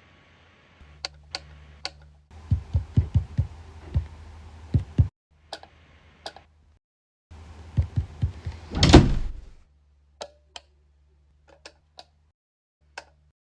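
Foley effects: a string of sharp clicks and low thumps, with one heavier, longer thump about nine seconds in, then a few scattered clicks.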